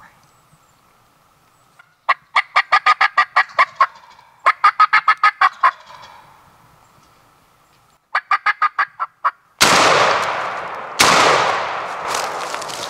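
Wild turkey gobbler gobbling three times, each gobble a fast rattling run of notes, then two loud shotgun blasts about a second and a half apart, each echoing away through the woods.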